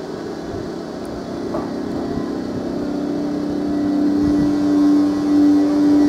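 Czech Railways class 163 electric locomotive creeping along the platform, giving a steady humming tone that grows louder as it comes closer.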